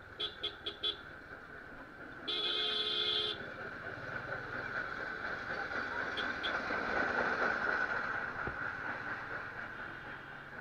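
Vehicle horns in road traffic: four quick beeps in the first second, then one longer, louder honk about two seconds in, over steady riding noise from a moving motorcycle.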